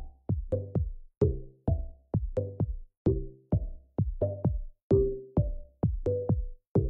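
Background electronic music: a beat of short, sharp hits carrying brief pitched notes, with short gaps of near silence between them.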